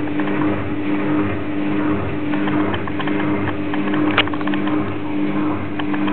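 Balay washing machine running: a steady motor hum with a mid-pitched tone that comes and goes, under a noisy wash and scattered light clicks and rattles, with one sharper click about four seconds in.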